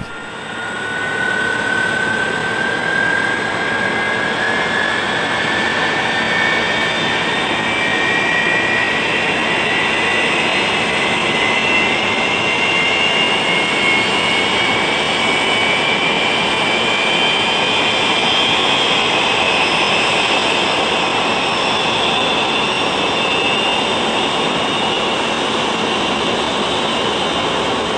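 Boeing 747's turbofan engines starting up: a steady jet rush with a whine that climbs slowly in pitch as the engines spool up, levelling off near the end.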